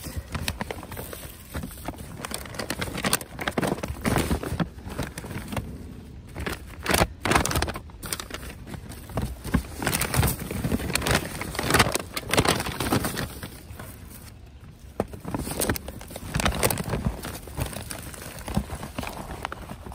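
Plastic trash bags and a plastic mailer rustling and crinkling irregularly as gloved hands rummage through them, with small clinks of jewelry being handled. Busiest in the middle, easing off briefly about two-thirds of the way through.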